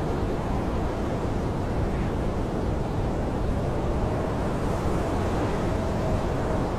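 Blizzard wind howling steadily, heard from inside a camping tent: an unbroken low rush, with a faint whistle coming in during the second half.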